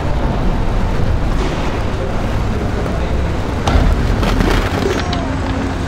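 Demolition derby cars' engines running in a loud, dense low rumble, with a few sharp crashes of metal about two-thirds of the way through.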